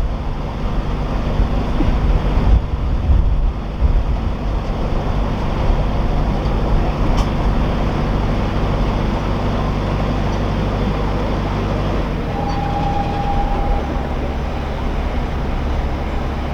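Narrowboat's diesel engine running steadily at low revs, its note changing about twelve seconds in.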